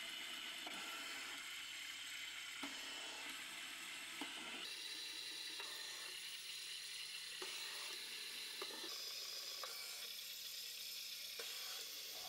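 Flatbed pen plotter running: a steady high-pitched mechanical whine and hiss whose pitch shifts a couple of times as the gantry and pen carriage move, with scattered single clicks.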